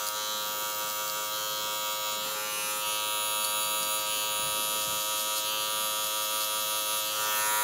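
Electric adjustable-blade hair clipper running with a steady buzz as it cuts hair short on the side and back of the head for a skin fade.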